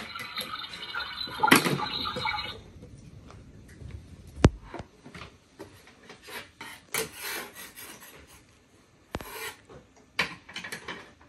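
A toy kitchen faucet plays its electronic running-water sound through a small speaker, a thin hiss that cuts off suddenly after about two and a half seconds. Then come scattered light clicks and short scraping rubs of chalk or a hand on the kitchen's little chalkboard, with one sharp knock about four and a half seconds in.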